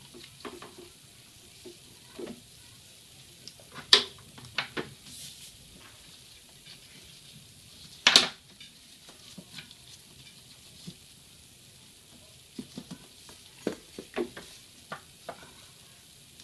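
Hand work on a rubber fuel hose and metal hose clamps: scattered light clicks, taps and rustles, with two sharper clicks about four and eight seconds in and a quick run of small clicks near the end.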